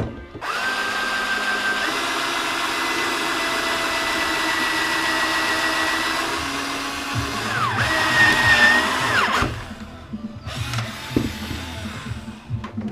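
Hand-held gas torch burning with a steady hissing roar and a high whistle, lit about half a second in and shut off suddenly after about nine seconds, used for brazing the refrigerator's copper tubing.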